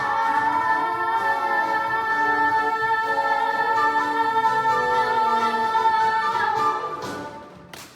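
Young voices hold the long final note of a musical-theatre song over a backing accompaniment. The chord fades out about seven seconds in, and applause breaks out right at the end.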